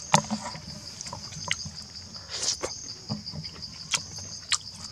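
Steady high insect drone, with a handful of sharp wet clicks and smacks of chewing close to the microphone, the loudest right at the start.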